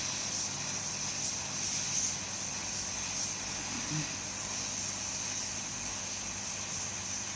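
Hot-air rework blower hissing steadily as it heats the solder around a phone motherboard's SIM card tray to loosen it.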